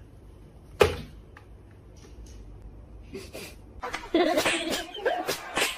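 A single sharp thump about a second in, then people laughing from about four seconds in.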